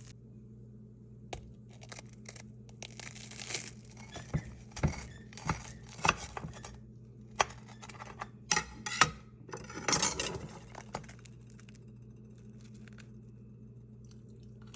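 Crisp crackles and clinks of a toasted sourdough pizza melt being handled and bitten into, a scattered run of sharp crunches that fades out about eleven seconds in, over a steady low hum.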